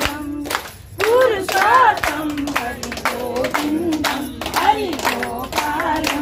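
Hands clapping in a steady beat, about three claps a second, with a voice singing a devotional song along with the claps.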